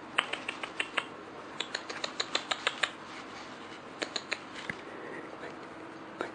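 Crisp crinkling and rustling of tissue paper and shredded paper filler in a cardboard box as a puppy noses through it: a quick run of sharp clicks over the first three seconds, a few more about four seconds in, and one near the end.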